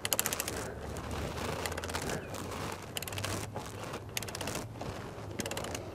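Ratchet wrench clicking in about five quick bursts, its pawl ratcheting on the return strokes as the spindle nut on a semi truck's axle is backed off.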